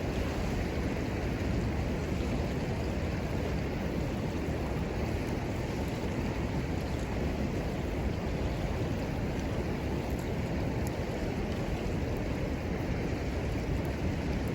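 Steady rushing of a river flowing nearby, an even noise that doesn't change.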